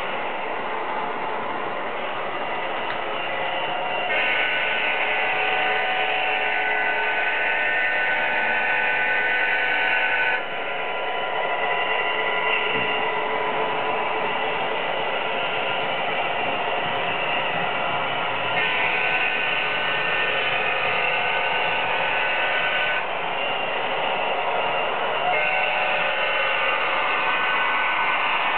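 Several HO-scale model trains running on a DCC layout, their onboard sound decoders playing locomotive sounds through small speakers over the running noise. A set of steady, whistle-like tones cuts in and out several times.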